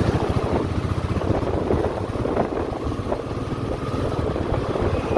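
Royal Enfield Meteor's single-cylinder engine running under way, a steady, rapid beat of exhaust pulses.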